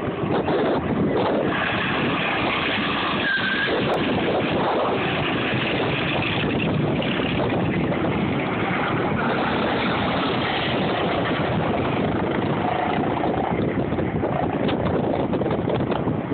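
Go-karts running on the course, heard through steady wind noise on a phone microphone.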